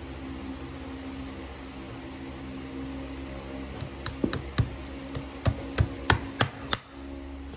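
Farrier's hammer tapping the nails of a newly set horseshoe at the hoof wall: about ten light, sharp metal taps, roughly three a second, starting about halfway in and growing louder, over a steady low hum.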